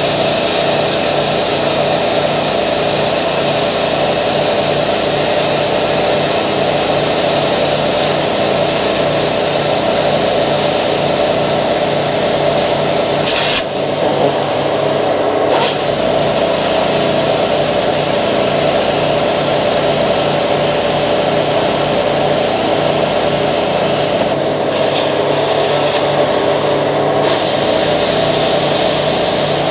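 Metal cutting torch burning through the sheet-steel wall of an oil tank: a loud, steady hiss. It breaks off briefly about halfway through and then resumes.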